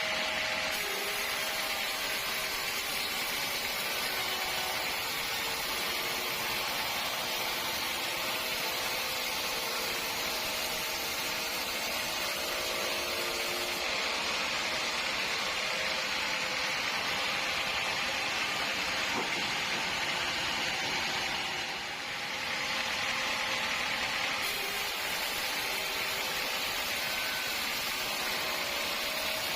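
Sawmill saw running steadily as it cuts through a log, a continuous hissing whine with a brief dip about 22 seconds in.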